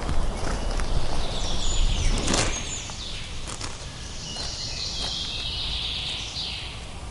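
Outdoor meadow ambience: a steady low rustle with faint high chirps above it and a short whoosh about two and a half seconds in.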